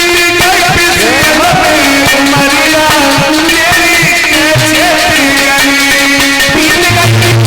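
Indian folk-style devotional music: a melody with sliding notes over a regular drum beat.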